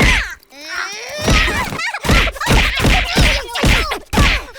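Cartoon fight sound effects: a sharp hit at the start and wordless, gliding cries, then a rapid run of thumps and whacks, about three a second, through the second half.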